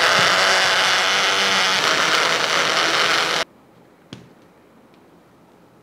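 Countertop blender running steadily, pureeing pandan leaves in water, then switched off abruptly after about three and a half seconds. A single click follows about a second later.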